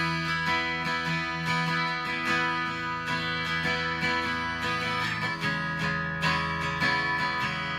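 Background music led by a strummed acoustic guitar with a steady rhythm.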